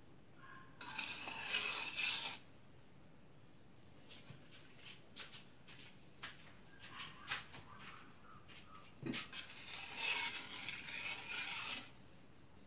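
A spoon stirring sugar into coconut water in a non-stick pan, scraping and knocking against the pan's bottom and sides. It comes in two scraping spells, one about a second in and a longer one about ten seconds in, with scattered light clicks between.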